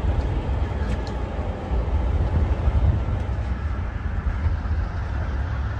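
Diesel train engine running with a deep, steady low rumble.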